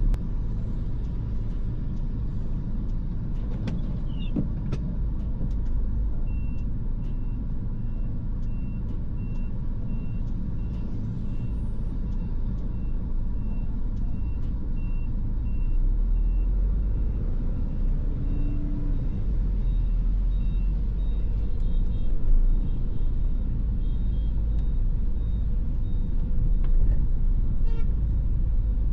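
Steady low rumble of a Mini Clubman (R55) running, heard from inside the cabin. Over it comes a run of evenly paced electronic beeps, a little under two a second, for about ten seconds. Later a second run of beeps at a higher pitch follows.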